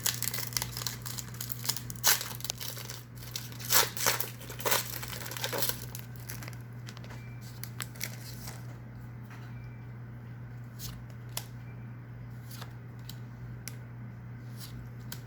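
A foil Pokémon booster pack wrapper crinkling and tearing open, loudest in the first half. After that, only occasional faint clicks of cards being handled over a steady low hum.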